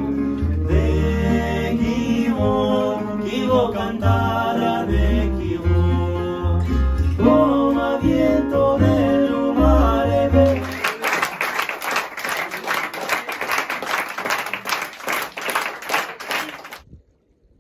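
Live acoustic band of double bass and acoustic guitars with a man singing in Italian, ending the song about ten seconds in. Audience applause follows for about six seconds and cuts off suddenly.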